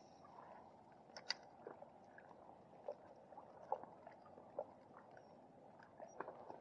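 Near silence: faint open-water ambience with a few soft, scattered ticks and taps from a spinning rod and reel being handled in an inflatable kayak.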